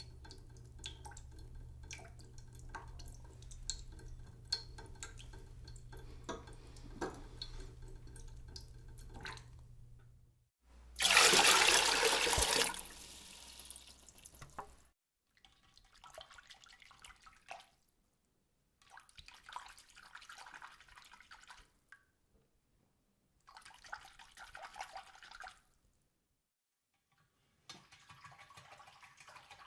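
A string of separate water sound effects: about ten seconds of water dripping, with distinct drops over a low hum, then a sudden loud rush of water lasting about two seconds and fading away, then four shorter bursts of moving water with silent gaps between them.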